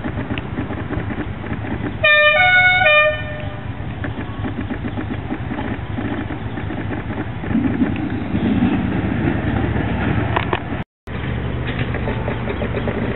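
Ride-on miniature Intercity 125 locomotive running along its track with a steady mechanical hum. About two seconds in it sounds a two-tone horn, low-high-low, lasting a little over a second.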